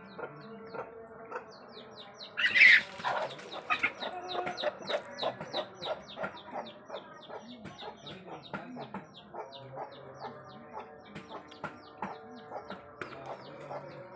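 Chickens clucking in a yard, with a steady run of quick, short, high chirps that fall in pitch. One loud squawk comes about two and a half seconds in.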